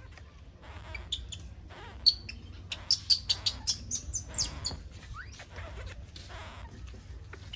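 A quick run of short, high-pitched animal calls, about five a second, starting about two seconds in and stopping near the middle, with a few fainter calls after.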